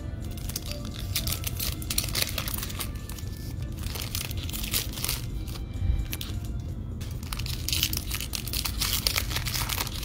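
Foil wrappers of Panini Prizm basketball card packs crinkling and tearing as they are opened and handled, in several bursts of dense crackle.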